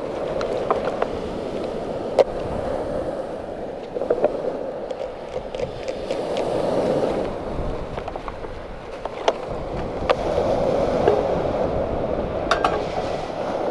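Steady wash of sea surf that swells and eases slowly, with scattered sharp clicks and knocks of a knife and hands working a fish on a wooden cutting board.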